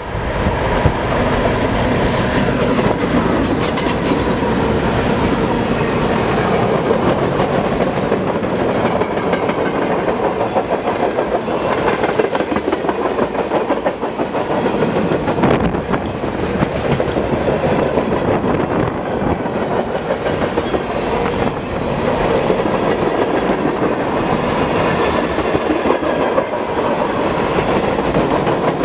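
Freight train rolling past at close range, its car wheels clicking steadily over the rail joints.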